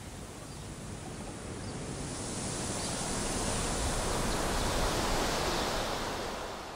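A gust of wind rushing through hedges and trees, a steady hiss that swells for about five seconds and then starts to die away near the end.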